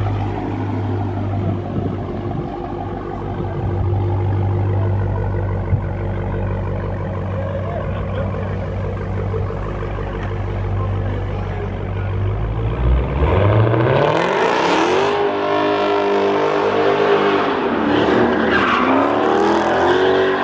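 Supercharged V8 of a Dodge Hellcat running at a steady low rumble, then revving hard from about 13 seconds in. The revs rise, dip and climb again as the car swings out, with a short burst of hiss just after the revs first climb.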